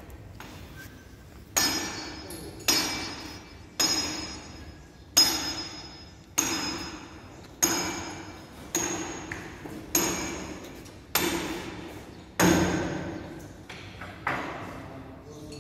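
A hammer striking metal again and again, about a dozen blows at a steady pace of roughly one a second, each one ringing out and fading before the next.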